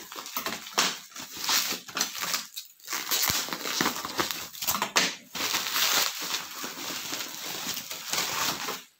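Bubble wrap crinkling and rustling in a run of irregular crackles as it is cut and pulled off a plastic shoe box.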